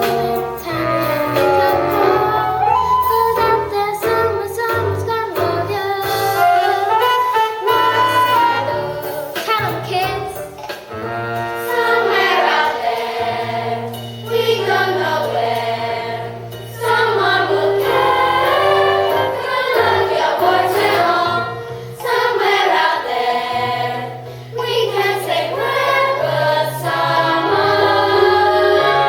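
Group of young voices singing a musical-theatre song with instrumental accompaniment; long held bass notes sit under the moving vocal melody.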